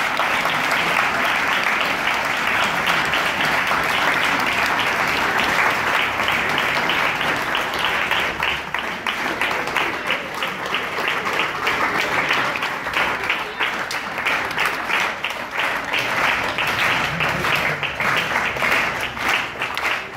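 Audience applauding: dense clapping that thins into more separate claps in the second half.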